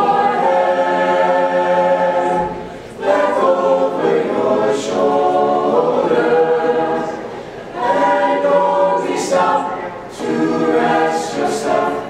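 Mixed-voice chamber choir singing a cappella in harmony: long held phrases, with short pauses for breath about three, seven and a half and ten seconds in.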